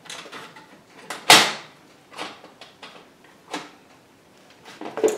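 Metal clacks and knocks as a steel drill-bit index case is folded shut and handled on a wooden workbench. A loud clack comes about a second in, followed by several lighter knocks.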